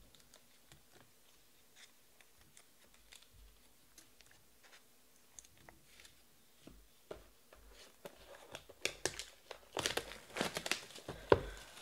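Plastic shrink wrap being torn and crinkled off a sealed trading-card hobby box: faint scattered crackles at first, then louder tearing and crinkling over the last few seconds.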